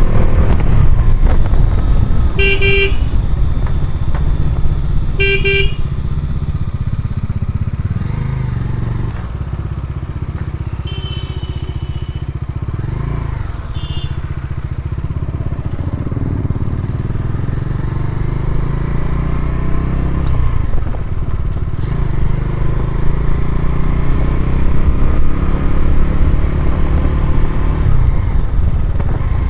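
Bajaj Dominar 400's single-cylinder engine running on the road, with a horn beeping twice in short toots a few seconds in. Two fainter, higher-pitched horn toots follow around the middle.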